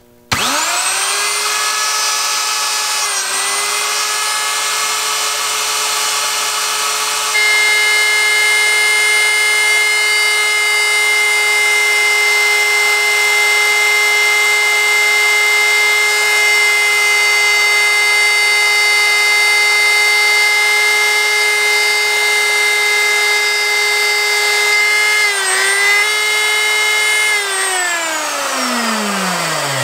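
Electric wood router switched on: its motor spins up within a moment to a steady high whine and runs at speed, with a couple of brief dips in pitch. Near the end it is switched off and winds down, the whine sliding lower as the bit slows.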